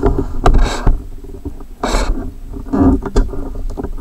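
Cardboard toy box with a clear plastic window being handled and shifted right up against the microphone: irregular rubbing, scraping and crinkling, with several louder bumps and a low handling rumble.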